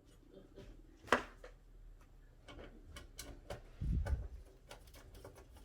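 Scattered clicks and knocks of oven door handle parts and brackets being handled and fitted. There is a sharp click about a second in and a low thump about four seconds in.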